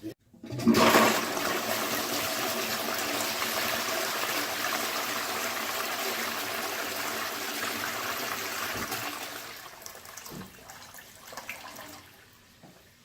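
VitrA Rim-ex rimless toilet flushing: a brief click, then a strong rush of water that is loudest in its first second and runs steadily for about nine seconds. It then tapers off with a few gurgles and stops about twelve seconds in.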